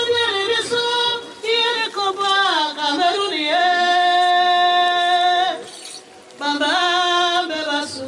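A woman singing into a handheld microphone, a solo melody of gliding phrases and long held notes. She breaks off about six seconds in, then starts a new phrase.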